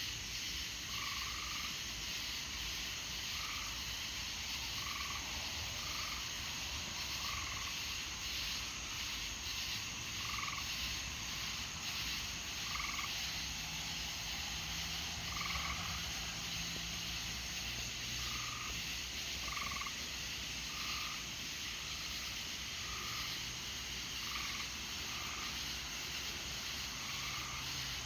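Frogs calling: short, single notes repeated irregularly every second or two, over a steady high-pitched chorus and a low background rumble.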